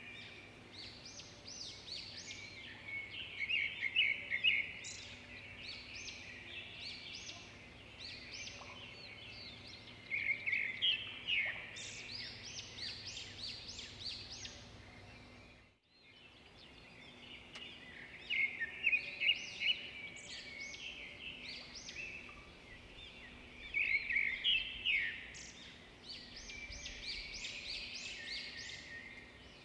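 Birds chirping and singing in quick high trills that come in repeated bursts. About halfway through the sound fades briefly to near silence and comes back.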